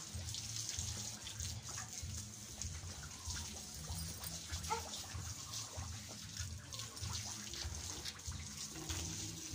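Water spraying steadily from a garden hose onto piglets and the wet concrete floor of their pen, over a low rumble.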